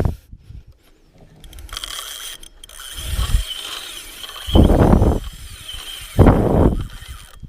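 Fishing reel being cranked to reel in a fish, its gears whirring with a thin steady whine. Three loud low rushes of noise come about three, four and a half and six seconds in.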